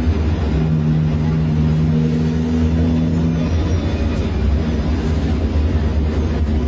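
Cummins ISBe 6.7 inline-six diesel of an Agrale MT15 city bus with a free-flowing exhaust, running steadily with a deep rumble heard from on board. A steady drone sits over the rumble for the first half and then drops away.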